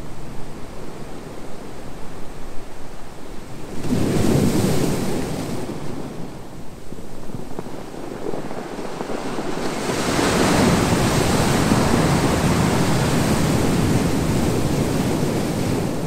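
Sea waves surging onto the shore: a short surge about four seconds in, then a longer, louder wash from about ten seconds that slowly fades near the end.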